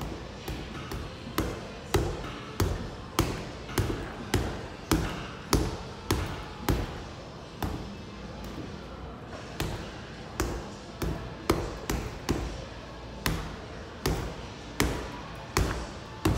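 Boxing gloves punching a Century heavy bag: a run of sharp thuds about two a second, in combinations broken by short pauses.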